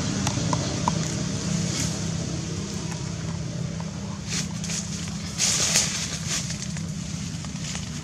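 A steady low engine-like rumble runs throughout. Bursts of close rustling and scratching come about halfway through, the loudest a little before the end.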